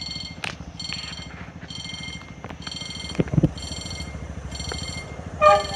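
Level-crossing warning bell ringing in even electronic pulses, about one a second, over a low rumble. There is a loud low thud about three seconds in and a short loud tone near the end.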